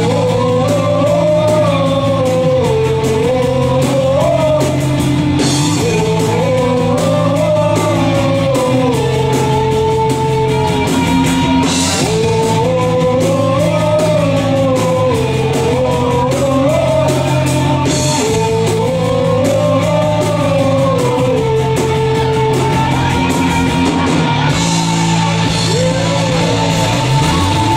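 Rock band playing live: electric guitars, bass guitar and drum kit, with a lead melody that bends up and down in repeating phrases of a few seconds.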